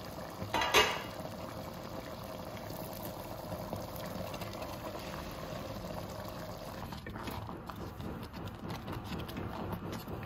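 Steady bubbling of liquid, with one sharp clink under a second in and light clicks in the last few seconds.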